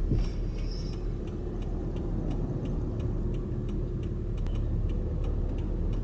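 Inside a car's cabin: the steady low hum of the engine and road, with the turn-signal indicator clicking evenly about three times a second.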